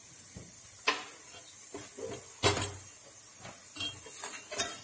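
Steel spoon knocking and scraping against a small steel pot while stirring jaggery dissolving into syrup. A few sharp clinks: one about a second in, one about halfway, and several close together near the end.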